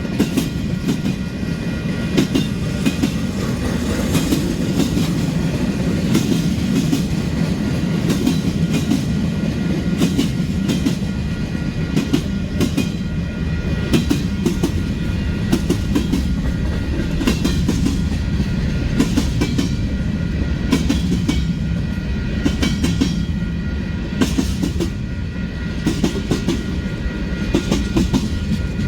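Long freight train rolling past, its freight cars' wheels clacking over the rail joints in a steady stream of clicks above a continuous low rumble.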